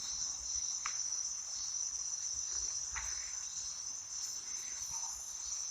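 A steady high-pitched insect chorus, with a couple of faint brief sounds about a second in and near the middle.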